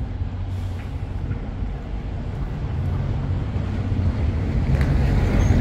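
Wind buffeting the microphone as a steady low rumble, mixed with street traffic noise that grows louder near the end.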